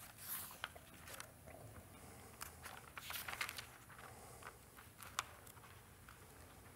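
Faint paper rustles and light ticks of Bible pages being leafed through, with quiet room tone in between; a small sharp tick comes about five seconds in.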